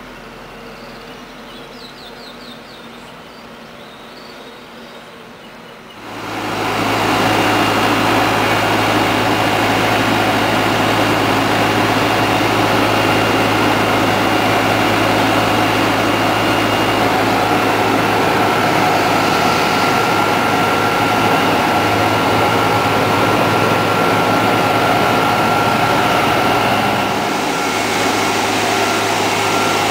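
Quiet background at first, then about six seconds in a loud, steady mechanical drone from a nearby engine or machine sets in and keeps running, easing slightly near the end.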